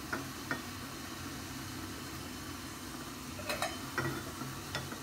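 Small steel tempering pan knocking and clinking lightly a few times on the gas stove's grate, over a steady low hum and hiss of the lit burner and kitchen.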